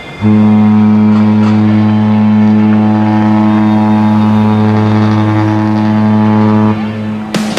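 Cruise ship's horn sounding one long, loud, deep blast of about six and a half seconds as the ship casts off from the quay, then stopping.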